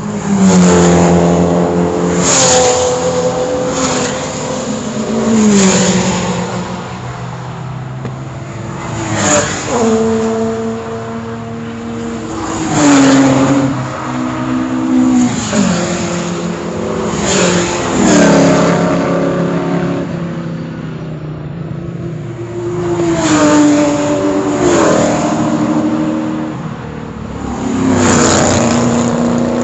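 Classic saloon race cars passing at racing speed one after another, about ten in all, each engine note loud as it goes by and dropping in pitch as it passes.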